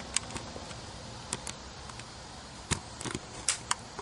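Several short, sharp clicks and ticks at irregular intervals, about eight in all, over a steady hiss; no gunshot.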